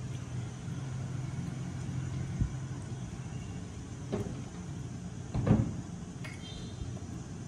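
A steady low hum with a few scattered knocks, the loudest about five and a half seconds in.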